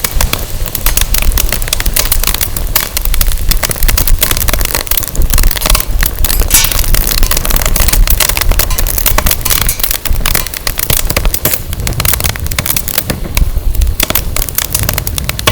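Firewood burning in a fire pit, crackling and popping densely and irregularly, with a strong low wind rumble on the microphone.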